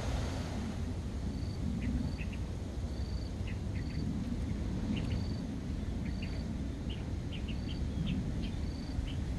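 Field ambience of insects giving short, high, even-pitched chirps about once a second, with quick lower chirps of birds scattered through, over a steady low rumble.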